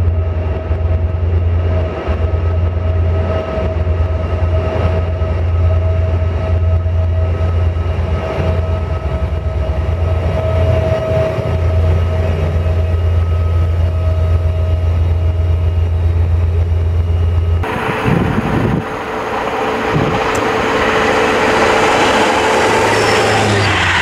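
SNCF CC 72100-class diesel locomotive moving slowly along a station platform, its engine a steady deep drone with a held higher whine above. About three-quarters of the way through it cuts to the even rush of passenger coaches going past at speed.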